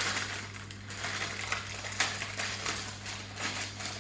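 Cardboard blind box being torn open and handled: irregular rustling, tearing and small clicks of packaging, with a sharper crack about two seconds in.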